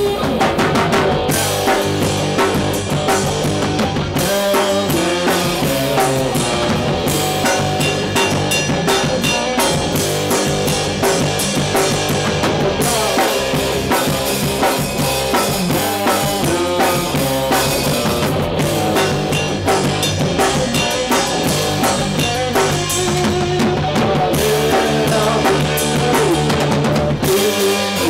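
Instrumental rock jam: electric guitar and electric bass playing over a drum kit, with a steady beat throughout.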